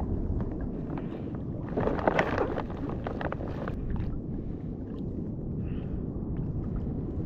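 Sea water sloshing and lapping around an inner-tube fishing float, with a low wind rumble on the microphone; a louder splash comes about two seconds in.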